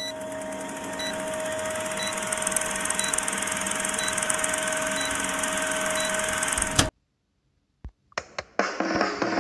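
Old film-projector countdown sound effect: a projector running with a steady rattle and film crackle, a steady hum, and a short high beep once a second. It cuts off suddenly about seven seconds in, followed by a few sharp clicks near the end.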